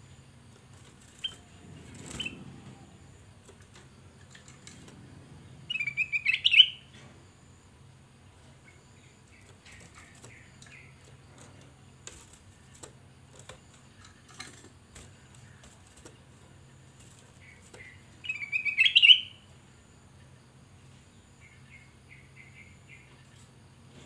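Caged ruby-throated bulbul (kutilang emas) singing two short, loud warbled phrases about twelve seconds apart, with a few soft chirps in between.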